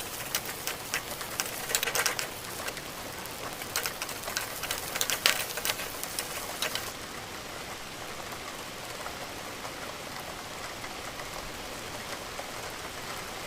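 Stir-fried instant noodles sizzling and crackling in a hot pan. The crackles are dense at first and thin out about seven seconds in, leaving a steady sizzle.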